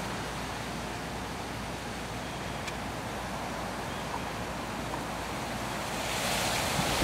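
Steady outdoor rushing hiss of wind, growing louder near the end as gusts hit the microphone.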